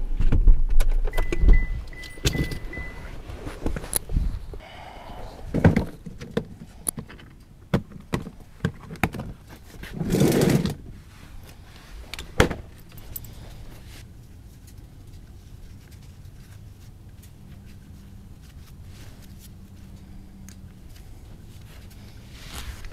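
Jingling metal clinks and knocks of gear being handled, with a low rumble in the first few seconds and a short, louder rustle about ten seconds in. After that only a faint, steady low hum remains.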